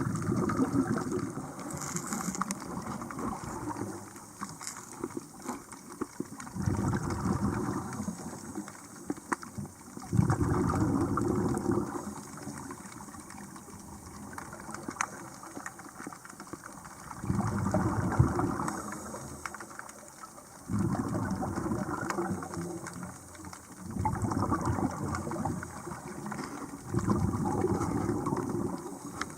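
Scuba regulator exhaust bubbles, heard underwater: a rough bubbling rush comes in bursts every few seconds as the diver breathes out, with quieter pauses between breaths.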